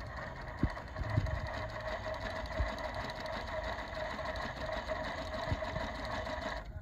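Single-needle industrial sewing machine running steadily at speed, stitching fold-over elastic fed through a binder attachment, then stopping abruptly near the end with a thump.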